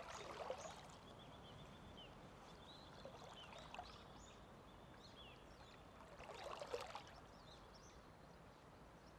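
Faint sloshing and rustling of a person wading through shallow, weedy water, with two short louder bouts: one right at the start and one about six and a half seconds in.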